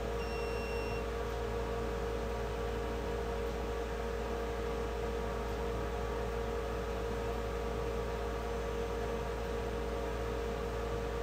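Steady electrical hum with one strong held mid-pitched tone over a faint even hiss, like running equipment or a fan. A short high beep sounds in the first second.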